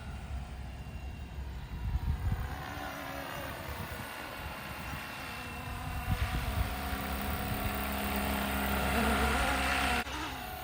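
Flywing Bell 206 electric RC scale helicopter in flight, its rotors and motor making a steady whirring hum with a whine. It grows louder for a few seconds as it comes closer, then drops off sharply near the end.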